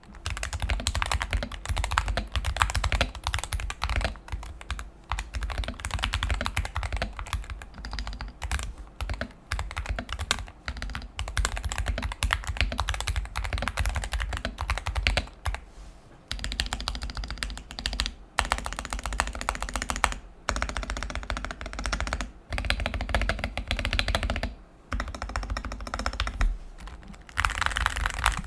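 Continuous typing on a Skyloong SK61 keyboard with Gateron Optical Yellow linear switches and Dark Project shine-through keycaps, stabilizers lubed with Permatex and 205g0. Rapid, dense key clacks with a few short pauses in the second half.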